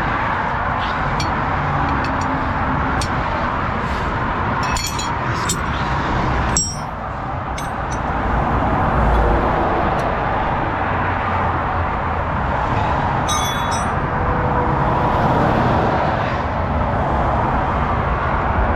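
Steady traffic noise with scattered metallic clinks of long spanners on the truck's bolts, a cluster about five seconds in and another about thirteen seconds in.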